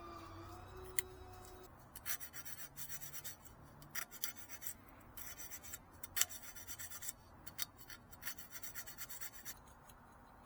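Hard scraping, rubbing strokes in quick clusters of several a second, with short pauses between clusters, stopping about nine and a half seconds in.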